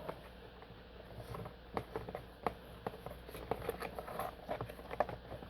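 Packaging being handled as an opened shipping box is gone through: light, irregular clicks and rustles, about a dozen small knocks.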